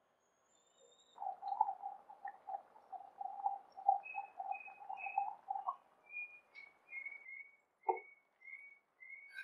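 Thick curry gravy boiling in a pan, with a quick run of soft bubbling pops over a faint hiss for the first few seconds. After that come short high chirps about twice a second and a single soft knock near the end.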